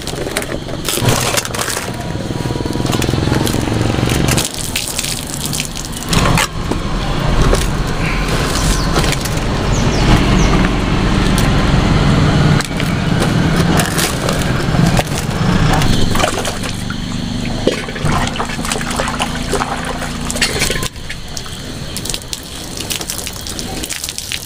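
Water pouring and splashing onto large banana leaves as they are rinsed, with scattered clicks as the leaves are handled.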